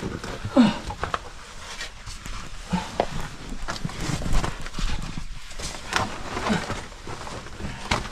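A caver grunting and breathing hard with effort while wriggling through a tight cave squeeze, several short falling grunts. Under them, the rustle and scrape of the coverall and boots dragging over rock and gravel.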